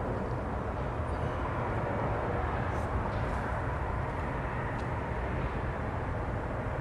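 Steady low outdoor background rumble, with a few faint light ticks.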